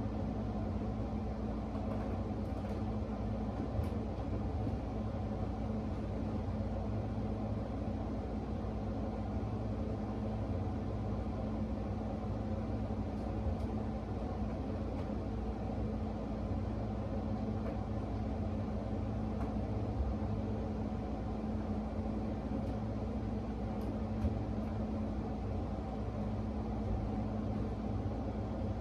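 A steady low mechanical hum, a constant low tone over a rumble, with a few faint clicks.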